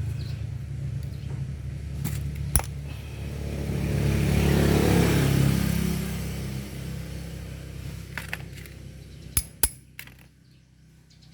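A vehicle engine running with a steady low hum that swells to its loudest a few seconds in and then fades away, with a few sharp metallic clicks.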